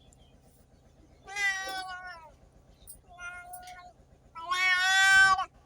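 A cat meowing three times: a falling meow, a shorter fainter one, then a longer, louder meow near the end.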